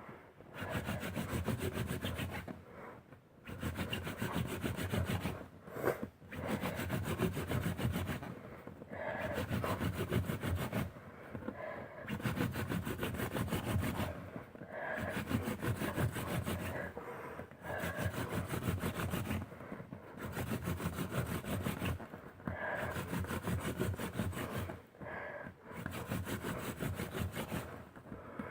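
Hand-drill friction fire: a mullein spindle spun hard into a western red cedar hearth board, a dry grinding rub in runs of two to three seconds with short breaks between them, as the hands return to the top of the spindle. The spindle is pressed down firmly to build an ember in the smoking dust.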